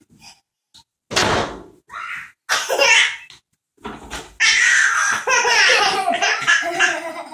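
Young children giggling and laughing in short bursts, then a long run of laughter through the last few seconds.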